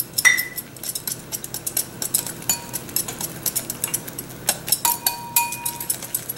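Wire whisk beating an egg with grated Parmesan in a ceramic bowl: rapid, irregular clicking of the wires against the bowl, a few strikes ringing briefly.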